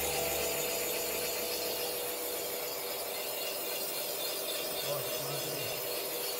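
Cylinder boring machine running, its boring bar cutting the cast-iron cylinder liner of a Hyundai D4HE block: a steady metal-cutting hiss with a few steady tones from the machine's drive.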